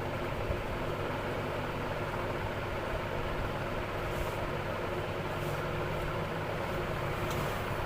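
Steady background rumble of vehicle traffic and engines, with a few faint brief rustles.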